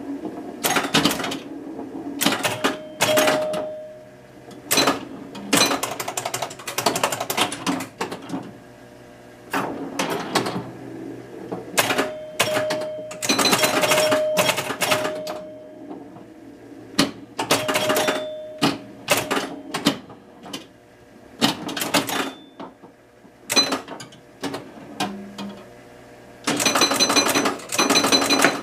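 Williams Fun Fest electromechanical pinball machine in play: irregular bursts of fast mechanical clicking and clatter from its score reels, relays and coils, with short ringing tones among them. Near the end comes a longer unbroken run of rapid clicks as the three-times bonus is counted up.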